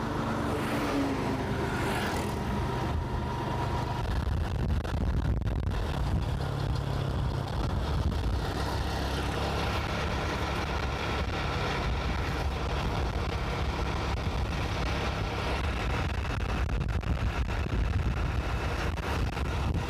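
Motorcycle running at road speed, a steady low engine rumble mixed with wind rush over the microphone.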